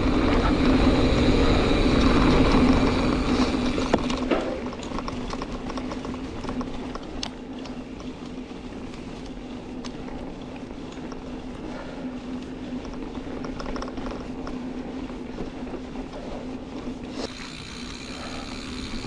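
Mountain bike rolling fast down a dirt trail: tyre and wind noise with the rear freehub's ratchet buzzing as the bike coasts, louder for the first few seconds and again near the end.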